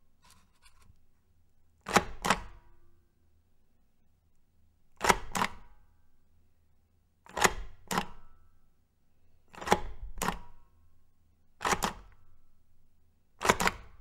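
Hand stamp pressed down and let back up over and over, each press a sharp double clack. Six double clacks come at uneven spacing, about every two to three seconds.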